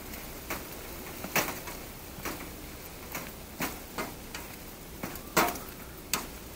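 A utensil knocking and scraping against the side of a metal camping pot while sliced mushrooms are stirred, giving about eight sharp, irregular clicks.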